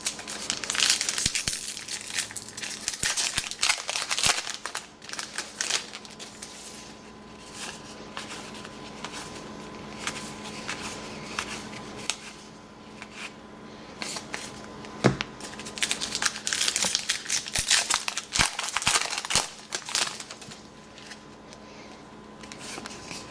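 Trading-card pack wrappers crinkling and tearing open, with cards being shuffled and flipped by hand. The rustling comes in irregular bursts with small clicks, busiest in the first few seconds and again past the middle, over a faint steady hum.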